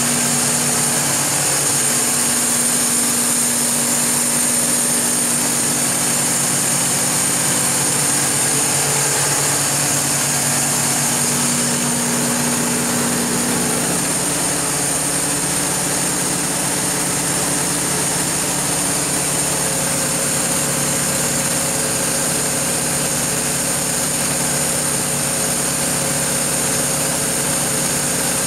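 Mitsubishi S12A2 V12 turbocharged diesel engine of a 760 kW Kohler generator set running steadily at speed, with a steady high-pitched whine over its drone.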